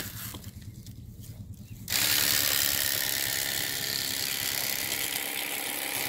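Electric fillet knife switched on about two seconds in, its motor and reciprocating blades running with a steady buzz as it goes into a walleye.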